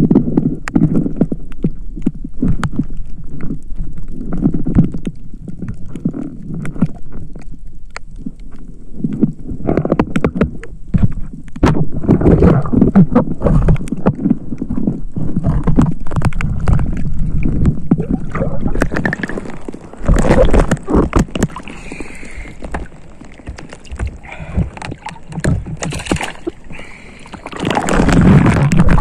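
Seawater sloshing and gurgling around the camera as the spearfisher swims, in uneven surges, with many small clicks and knocks.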